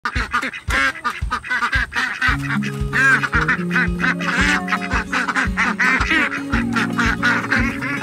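Background music with a steady beat and held low notes, with ducks quacking over it.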